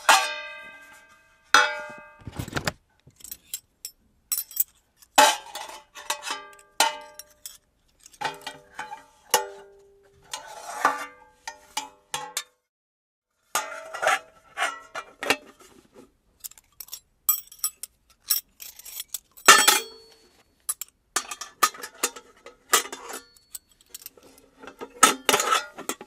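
Aluminum camping mess kit pieces being handled and knocked together: a long run of clanks and clatters, each with a short metallic ring, coming in clusters with brief pauses.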